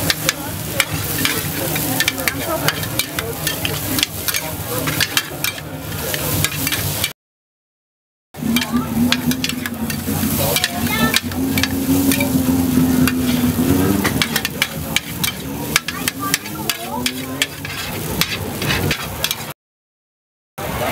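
Metal spatulas scraping and clattering on a large flat griddle as noodles are stir-fried, over a steady sizzle of frying. The sound cuts out completely twice, for about a second each, about seven seconds in and near the end.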